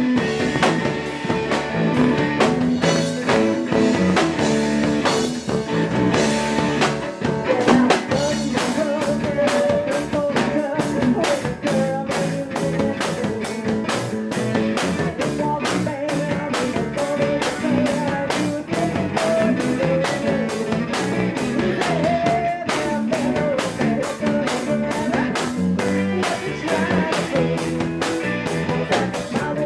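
Live rock band playing: a drum kit with cymbals keeping a steady beat under electric bass and electric guitar.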